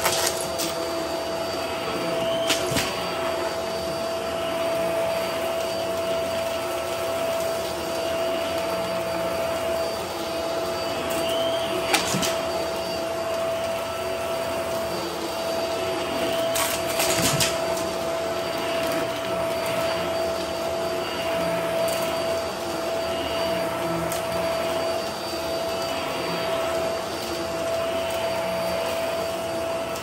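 Hart Pro upright vacuum running steadily on carpet, its motor holding a steady whine over the rush of suction. A few sharp crunches and clicks come through as debris is sucked up, the loudest about 12 seconds in.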